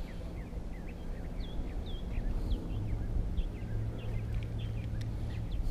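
Small birds chirping in many short, quick calls over a low outdoor rumble. A steady low hum comes in about three seconds in.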